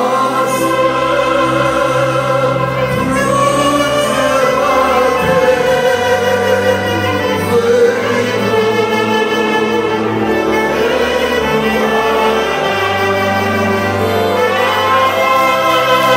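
Romanian folk band playing a lively tune: several tárogatós (taragot) and clarinets carry the melody together over accordion accompaniment, with low bass notes that change every second or two.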